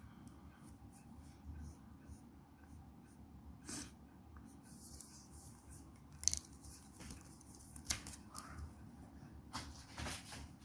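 Drawing strokes on paper: a few short, scratchy strokes and small clicks over a low steady hum.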